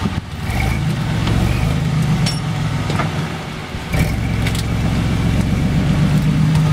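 Lifted off-road pickup's engine running steadily at low revs as the truck crawls its front wheel over a fallen log, with a few sharp knocks along the way.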